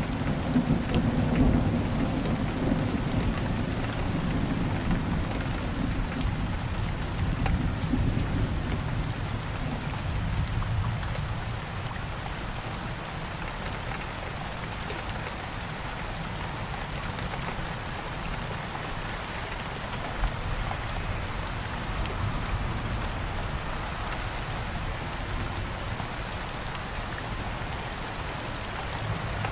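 Heavy rain falling steadily on window glass, with a low rolling rumble of thunder that fades out about ten seconds in.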